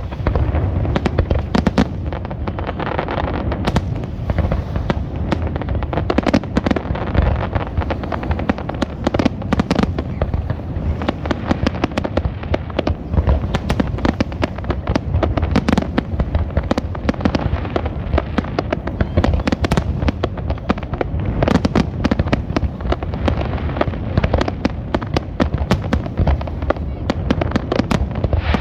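A continuous, dense crackle of many rapid, irregular pops and bangs over a steady low rumble.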